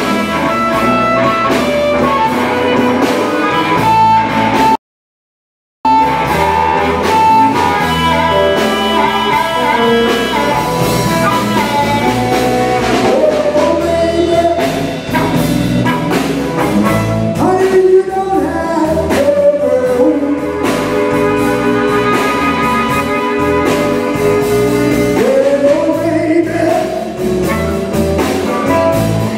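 Live electric blues band playing: electric guitar, bass guitar and drums, with amplified harmonica over them. About five seconds in, the sound cuts out completely for about a second, then the music carries on.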